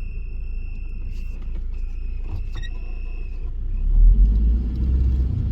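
1998 Nissan Frontier pickup driving in a low gear, engine and five-speed manual gearbox rumbling with a faint steady high whine and only a little bit of noise from the gears. The engine pulls harder about four seconds in and the rumble gets louder.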